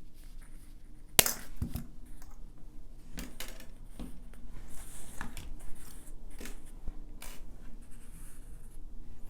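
Flush cutters snipping 18 gauge wire: one sharp snap about a second in, followed by softer clicks and taps of the tool and wire being handled.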